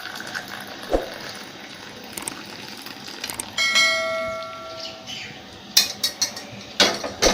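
Kitchen utensils knocking and clinking while the boiled kadha is poured out: a knock about a second in, a ringing bell-like clink in the middle that lasts over a second, then several sharp clinks near the end.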